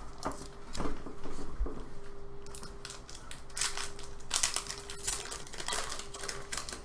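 Foil trading-card booster pack crinkling and crackling as it is handled and torn open, the rustling busiest in the second half.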